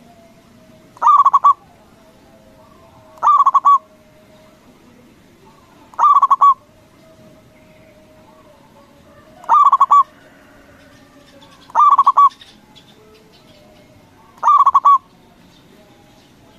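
Zebra dove (perkutut) cooing: six short, trilled coos, each about half a second long, repeated every two to three seconds.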